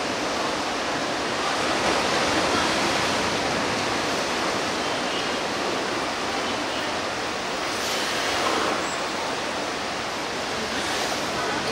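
Steady rush of moving water in an orca pool, with a few brief louder swells.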